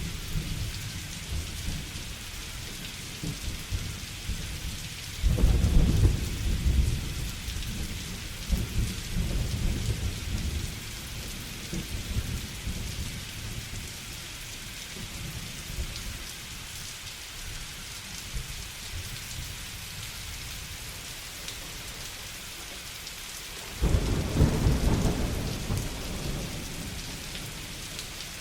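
Steady rain falling, with two rolls of thunder: one about five seconds in that rumbles on for several seconds, and another starting near the end.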